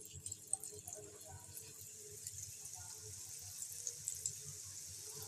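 Drops of gram-flour (besan) batter sizzling in hot oil in a kadai as they fry into mihidana. It is a soft, steady fizz with small crackles, growing a little as more drops fall in.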